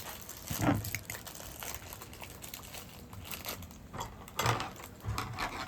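Food-handling sounds during burger assembly: a few soft knocks of utensils or food being set down, over faint rustling and wet food noises.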